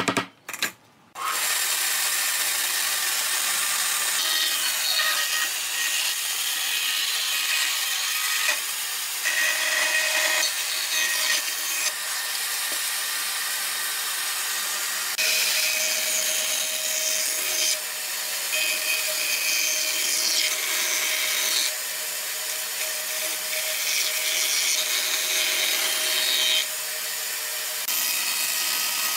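An electric power tool running steadily while working pine pallet wood, starting about a second in. Its sound shifts abruptly several times.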